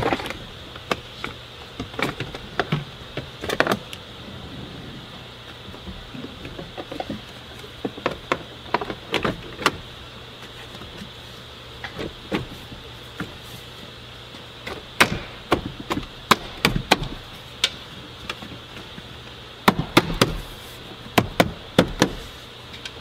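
A 2007 Toyota Sienna's plastic sliding-door trim panel being fitted back on by hand. Scattered clusters of sharp clicks and knocks come as the panel is pressed and tapped against the door and its clips snap into place.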